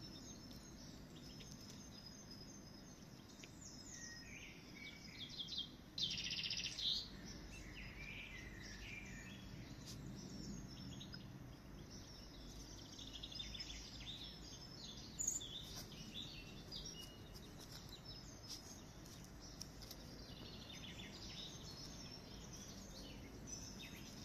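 Birds chirping and calling over a faint outdoor background hiss, with a louder cluster of high calls about six seconds in.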